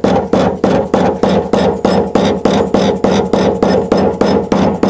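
Rapid, even tapping, about five strikes a second, each with a short ringing note: a screwdriver being driven against the fuel pump's locking ring on a 1993 VW Cabriolet's tank to turn the ring into its notches.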